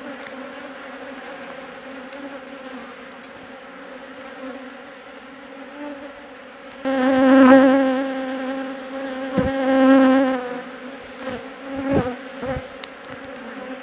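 Honeybees buzzing over an open hive's frames: a steady hum that swells much louder for a few seconds in the middle. A few short low thumps come near the end.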